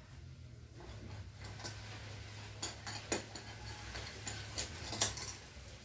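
Several sharp metallic clicks and taps from a spool of flux-core welding wire being handled at the spool holder inside a mini MIG welder's wire compartment. The loudest come about three and five seconds in, over a low steady hum.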